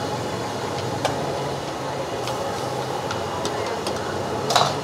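Steady street noise with a low hum, a few light clicks, and one louder clatter near the end.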